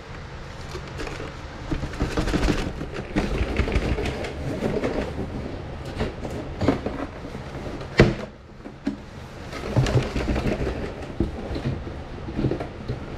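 A cardboard box and the packaging inside it being handled: irregular rustling, scraping and knocks, with one sharp knock about eight seconds in.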